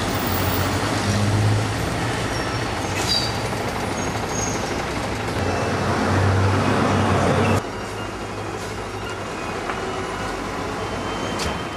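City street traffic noise: the rumble of passing and idling motor vehicles with a low engine hum, dropping abruptly in level about two-thirds of the way through.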